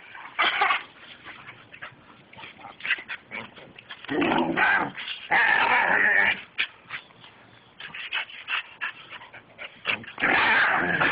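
A dog vocalising in a few bursts of about a second while it is play-wrestled: one just after the start, two back to back in the middle, and another near the end.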